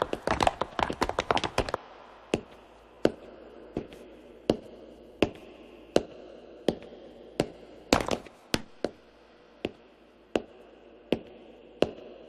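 Footsteps of hard-soled shoes on a hard floor: several people walking together for the first couple of seconds, then a single set of slow, evenly spaced steps, about one every three-quarters of a second, each a sharp tap.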